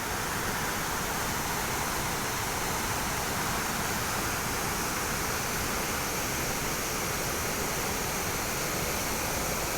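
Waterfall rushing steadily, swollen with high, muddy water after heavy rain.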